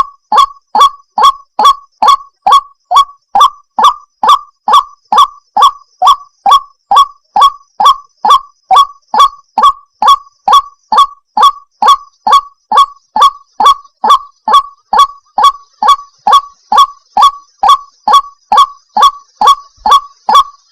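White-breasted waterhen (ruak-ruak) giving its lure call: a fast, unbroken string of short, harsh "wak" notes, about two and a half a second, each dipping slightly in pitch.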